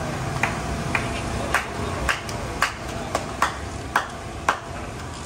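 A metal utensil striking metal cookware repeatedly, about nine ringing clinks at roughly two a second, over a steady hum of traffic.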